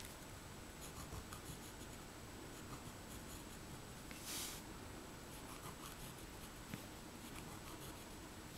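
Faint scratching of a black pen on paper in short strokes, drawing small stars, with a slightly longer scratch about four seconds in.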